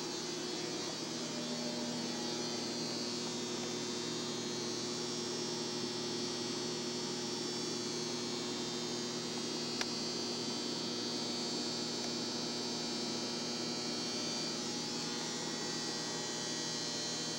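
Steady electrical hum with a layer of hiss, unchanging throughout, with a single faint click about ten seconds in.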